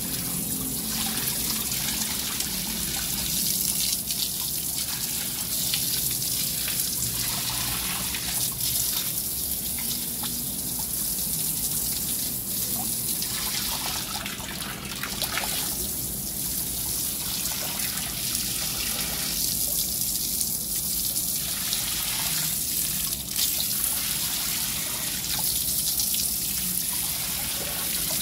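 A jet of water spraying steadily and splashing onto the wet concrete floor and the shallow water of a nearly drained fish pond.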